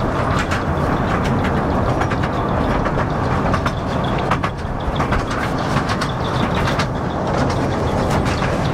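Small open-carriage toy train running, a steady rumble with frequent clicking and rattling from the carriages.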